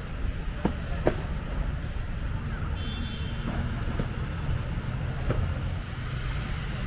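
City street ambience: a steady low rumble of traffic, with wind on the microphone, a few faint knocks scattered through it and a brief high-pitched tone about three seconds in.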